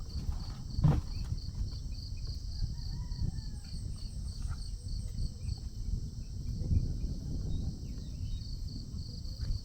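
Insect, cricket-like, chirping in an even high-pitched pulse a few times a second; it stops about three seconds in and starts again near the end. Under it is a low rumble, and there is a single knock about a second in.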